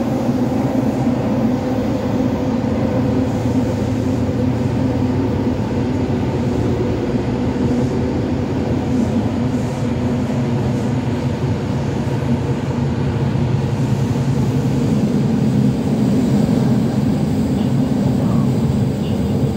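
Interior running noise of a Toei Oedo Line 12-000 series linear-motor subway car travelling through the tunnel: a steady, loud rumble of wheels and running gear.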